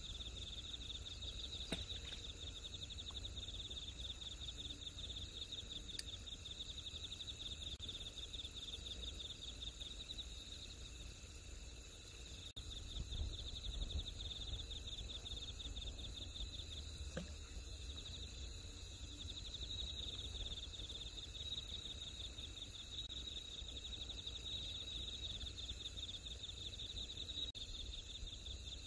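Night insects trilling in a steady, high, fast-pulsing chorus, with a low rumble underneath.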